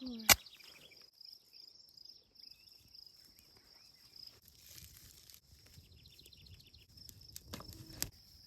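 Crickets chirping steadily in the background, a continuous high-pitched trill. A single sharp, loud snap comes just after the start, and another sharper click comes near the end.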